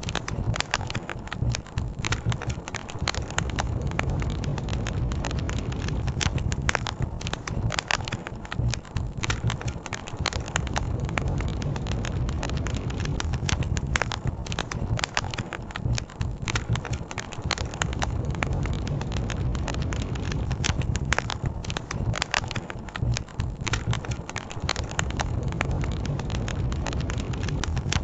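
Campfire crackling, with frequent sharp pops and snaps throughout, over a low rumble.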